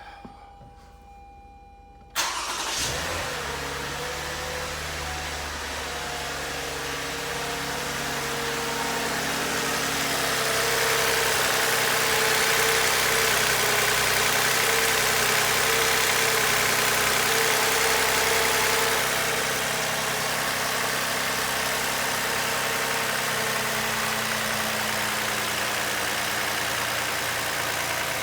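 2015 Toyota Highlander engine cranking and catching about two seconds in, then running steadily, a little louder through the middle stretch before settling. The owner questions whether the engine has a knock.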